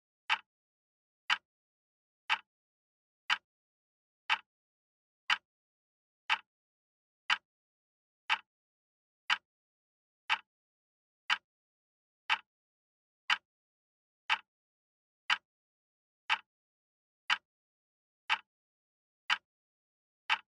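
Countdown-timer clock-tick sound effect: one short, sharp tick each second, about twenty in a row, marking off the seconds of a timer running down to zero.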